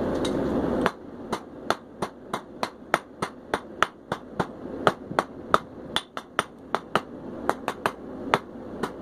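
Forging hammer striking hot steel on an anvil at about three blows a second while drawing out a taper on a bar's end. It follows a steady rushing noise that stops about a second in.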